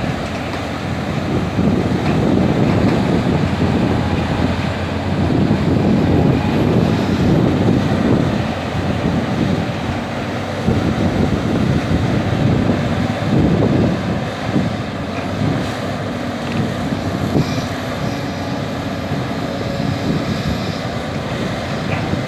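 Heavy diesel engine of a CAT 320D excavator working under load while loading soil, a low rumble that swells and eases every few seconds.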